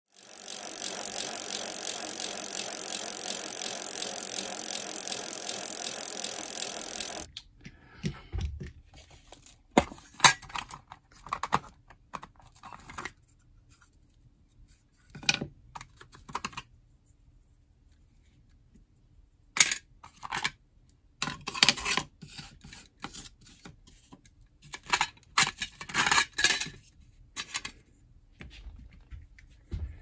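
Hands handling a 3D-printed plastic rekeying kit and the metal Altoids tin it packs into: scattered clicks, taps and scrapes as the plastic trays are lifted out and set down. It opens with about seven seconds of loud, steady hiss-like noise that stops abruptly.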